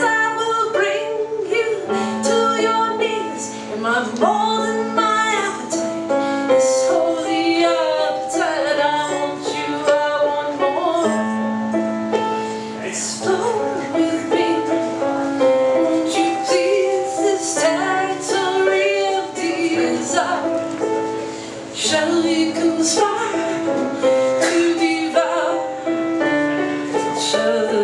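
A woman singing a song while accompanying herself on a Kawai digital piano, her voice moving over held chords.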